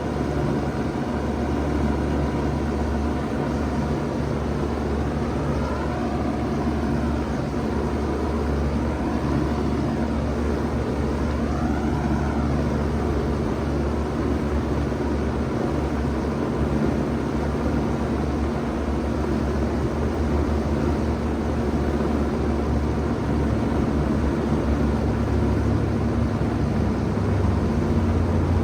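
A 1991 Bard Wall Aire 3-ton wall-hung heat pump running steadily in heat mode just after startup, a low hum under a steady rush of air. A faint tone wavers up and down in pitch for a few seconds near the middle.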